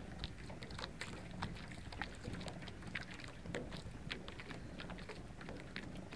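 Small waves lapping and splashing at the water's edge: a fast, irregular patter of little splashes over a steady low wind rumble on the microphone.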